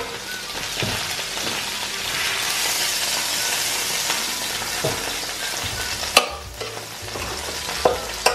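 Pieces of lamb sizzling in hot oil in a frying pan, a steady frying hiss that thins after about six seconds. A sharp metal clink about six seconds in, and a few lighter knocks near the end, come from the carving fork and the steel tray.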